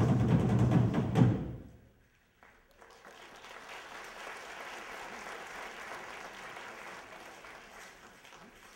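Loud drumming that stops about a second and a half in; after a brief hush, an audience applauds steadily, slowly fading toward the end.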